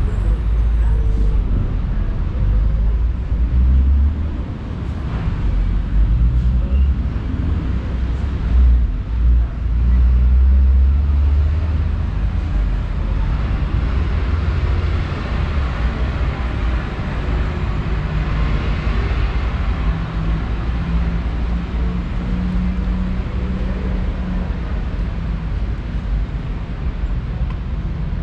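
City street traffic: motor vehicles running close by with a steady low rumble, and a vehicle passing about halfway through, its hiss swelling and then fading.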